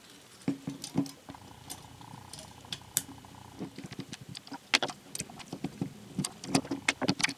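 Light, irregular clicks and scrapes of small metal hand tools on a plastic toy gearbox: a pick working at a spring, then a screwdriver backing out small screws. The sharpest clicks come about five seconds in and again near the end.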